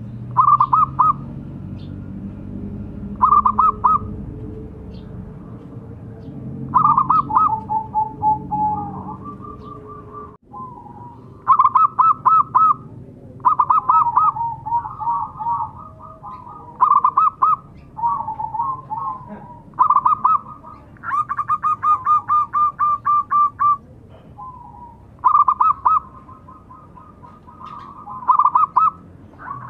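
Zebra dove (perkutut) cooing: repeated phrases of quick staccato notes, each a fast run of pulses often followed by a few lower rolling notes, coming every couple of seconds, with one longer run of rapid notes about two-thirds of the way through.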